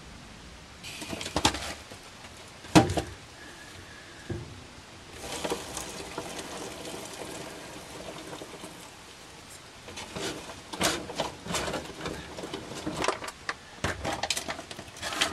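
Kitchen handling noises: a sharp knock about three seconds in, a stretch of hissy noise, then quick crinkling and crackling of a foil freeze-dried meal pouch being handled and opened near the end.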